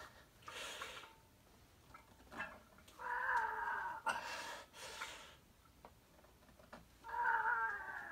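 A man straining through heavy barbell skull crusher reps: a high, whining groan lasting about a second, once about three seconds in and again near the end, with sharp breaths between the reps.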